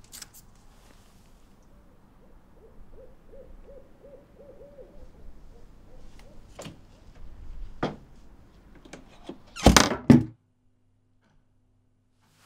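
Horror-film sound design: a low rumbling drone under a run of short wavering low tones, then a few sharp knocks. About ten seconds in comes a loud double bang, the loudest thing here, which cuts off abruptly into quiet room tone with a faint steady hum.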